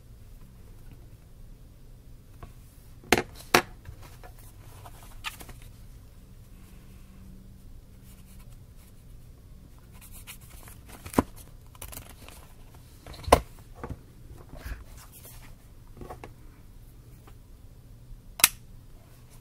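Scattered sharp clicks and taps, about seven in all, from handling a small spiral-bound notebook, a pen, an Apple Pencil and an iPad on a wooden desk, over a faint low hum.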